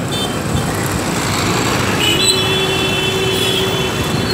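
Street traffic: the engines of passing auto-rickshaws and motor scooters run close by. Midway a horn sounds once, held for about a second and a half.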